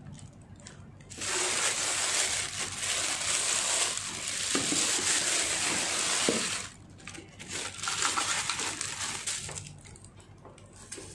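Thin plastic packing bag crinkling and rustling as a loudspeaker is handled and slid out of it: a steady crinkle for about five seconds starting about a second in, then shorter rustles that die down near the end.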